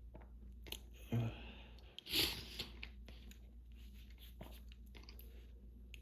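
Sniffling and nose rubbing from an allergy-irritated nose: two loud sniffs, a little over a second in and about two seconds in, then small wet clicks and squelches. A fan hums steadily underneath.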